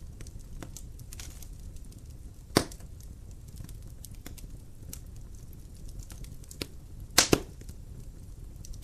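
Wood fire in a fireplace crackling, with irregular small pops over a low steady rustle, a sharp loud pop about two and a half seconds in and a quick cluster of pops near the end.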